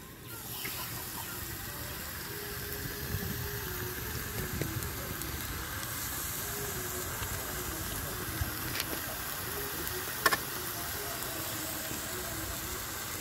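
Fish slices frying in oil on a dosa griddle (tawa): a steady sizzling hiss, with a single sharp click about ten seconds in.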